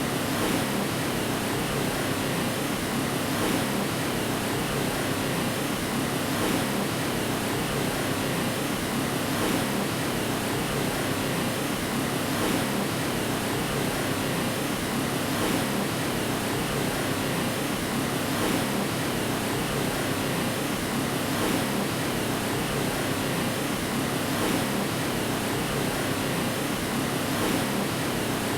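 Steady white noise for lulling a baby to sleep: an even, unbroken hiss, fuller in the lower middle than at the top, at a constant level.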